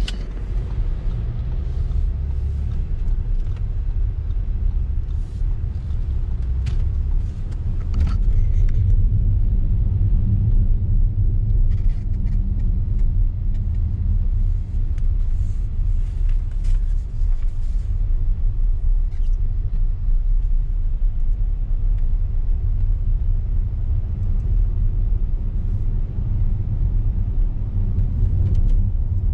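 Steady low rumble inside an Audi Q7's cabin while driving: road and drivetrain noise, with a few faint ticks and taps scattered through the first half.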